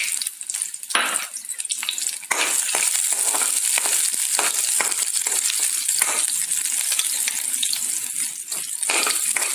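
Chopped onion and green chillies sizzling in hot oil in a kadhai, with a metal spatula scraping and stirring against the pan. The sizzle gets louder and denser about two seconds in.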